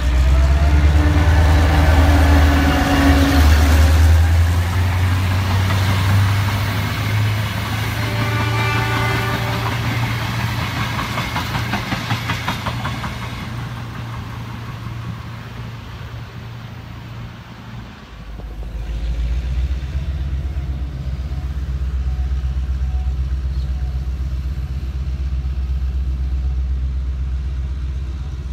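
A diesel-hauled Queensland Rail long-distance passenger train passing close by, with a deep engine rumble and some pitched whining tones in the first half. Fine rapid clicking of wheels running over the rails follows. The sound dips at about 18 seconds, then returns as a steadier low rumble of carriages rolling past.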